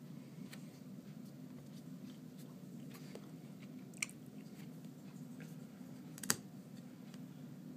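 Faint scattered clicks and ticks of small repair tools and parts being handled on an opened tablet, with two sharper clicks about four and six seconds in, over a steady low hum.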